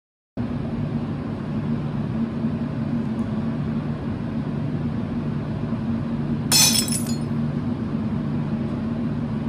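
A steady low hum that cuts in abruptly just after the start, with a brief sharp clinking clatter, like glass or metal, about six and a half seconds in.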